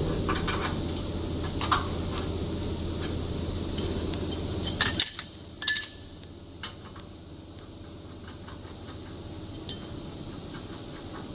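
Sharp metallic clinks and knocks of metal parts or tools being handled, clustered together about five seconds in and once more near the end. Under them a steady machine hum stops abruptly about five seconds in.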